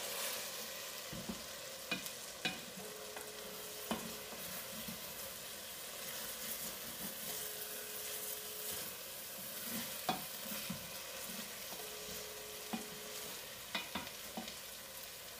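Wooden spoon stirring meatballs in a stainless-steel pot, with a few sharp knocks of the spoon against the pot, over a steady sizzle of food frying in hot oil.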